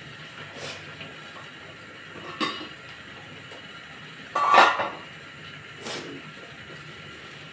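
Aluminium steamer pot and lid clinking and scraping in a few short knocks as the lid is handled with a cloth, over a steady hiss. The loudest knock comes a little past the middle.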